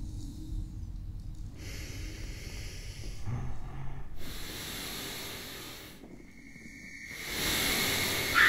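Accordion with live electronics playing breathy, hissing swells of air noise, one after another. A thin, high held tone comes in about six seconds in, and the sound grows louder near the end.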